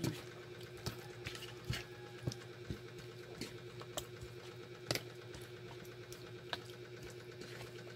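Raw chicken wings being turned and mixed by hand on a plate: scattered soft wet slaps and clicks as the pieces are moved, over a steady low hum.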